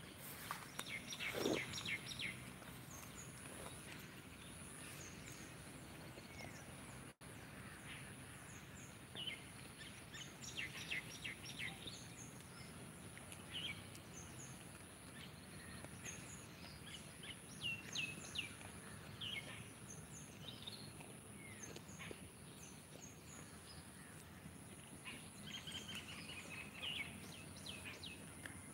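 Wild birds chirping on and off in clusters of short high calls, over a thin steady high-pitched tone and faint background noise.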